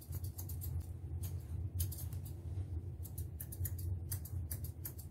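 Thinning shears snipping through a Pomeranian puppy's fluffy coat around its ears, in quick runs of crisp snips with short pauses between them. A steady low hum runs underneath.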